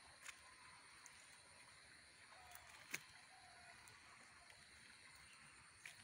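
Near silence, broken by a few soft clicks and rustles from a nylon cast net and fish being handled; the sharpest click comes about three seconds in.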